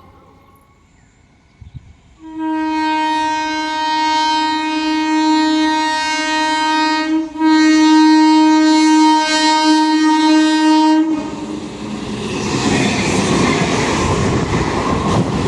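Indian Railways locomotive horn sounding a long steady blast of about five seconds, then after a brief break a second blast of about four seconds. The train then passes close by with a loud rushing rumble and wheels clattering over the rail joints.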